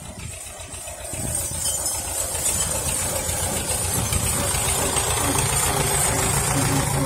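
Belarus tractor's diesel engine running as the tractor drives up and passes close by, growing louder over the first couple of seconds and then holding steady.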